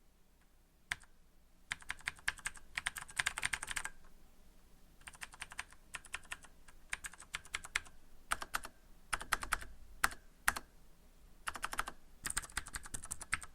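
Typing on a mechanical keyboard with Cherry MX key switches and no rubber O-ring dampeners fitted, so the keys clack on each press. The key clicks come in quick bursts with short pauses between them.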